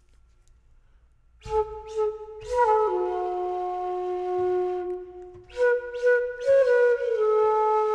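Background music: a solo flute playing slow, held notes that step from pitch to pitch, each phrase starting with a breathy attack. It comes in after about a second and a half of near silence.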